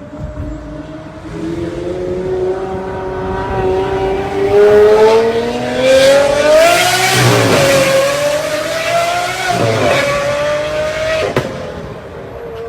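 Lamborghini engine and exhaust accelerating hard: the pitch climbs steadily for several seconds, falls sharply about seven seconds in as it shifts up, climbs again and falls once more near ten seconds. A sharp crack comes about eleven seconds in.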